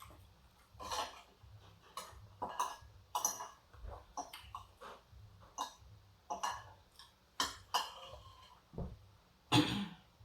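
Eating sounds close to the microphone: a series of short, irregular mouth smacks and clicks, with the loudest about nine and a half seconds in.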